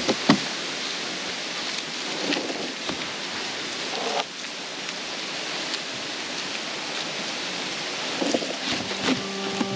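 A steady hiss, with scattered rustles and a few light knocks as a rope is looped and tied around a dry fallen log in the grass.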